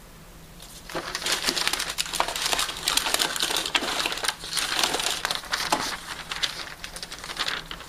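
Crinkling and rustling dotted with many small clicks, starting about a second in: ECG electrodes being peeled and pressed onto a chest, with their lead wires handled, while a 12-lead ECG is set up.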